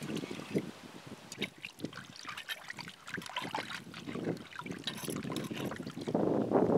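Water poured into a clay pot of raw chicken pieces, then a hand swishing and rubbing the chicken in the water: irregular splashing and sloshing that grows louder near the end.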